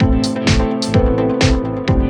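Electronic background music with a steady, even beat of kick drum and hi-hats under sustained synth notes.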